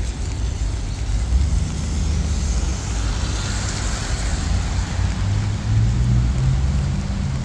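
Traffic on a rain-wet city street. A vehicle passes, its tyre hiss swelling about three seconds in, then a low engine hum, over steady rain and a low rumble.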